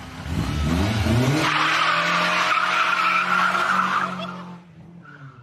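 A car engine revving up, then tyres squealing for about three seconds before the sound fades out near the end.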